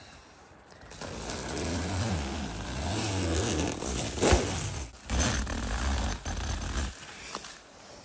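Door zipper of a Hilleberg Nammatj tent being pulled, with the tent's nylon fabric rustling and scraping as the door is opened. The noise carries a low rumble from handling and has a sharp scrape about four seconds in.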